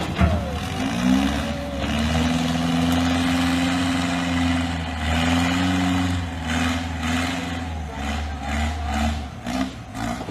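Heavy machine's engine revving up about a second in and running hard at a steady pitch, then surging up and down unevenly in the last few seconds.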